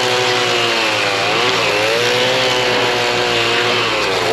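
STIHL MS290 chainsaw's two-stroke engine running hard, most likely cutting wood. Its pitch sags briefly twice as the chain bites, picking back up after each.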